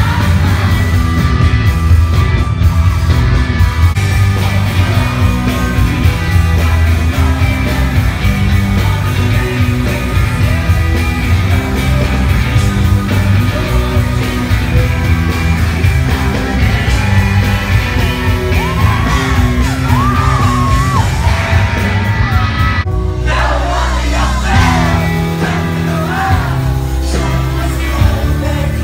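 Live rock band playing loud, with the lead singer singing and yelling over guitars and drums, heard from the crowd.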